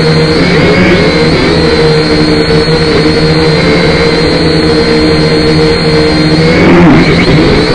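Syma X5C quadcopter's small electric motors and propellers running, a loud, steady multi-toned whine picked up by its own onboard camera. The pitch wavers and dips briefly near the end as the motor speeds change, then settles again.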